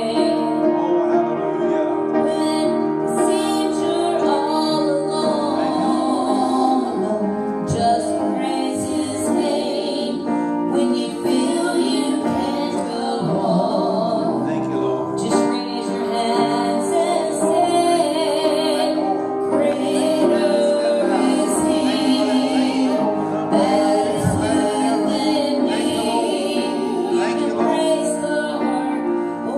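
Two women singing a gospel song into microphones over musical accompaniment, with long held notes.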